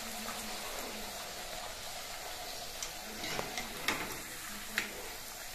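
Kachuri deep-frying in hot oil in a kadai, with a steady sizzle. A perforated steel skimmer taps against the pan three times, a little after halfway through.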